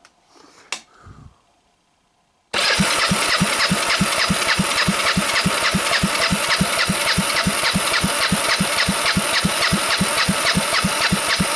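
Kawasaki Lakota KLF300 single-cylinder engine turned over by its electric starter from a jump pack during a compression test. The cranking starts suddenly a few seconds in and goes on steadily with an even, rapid beat.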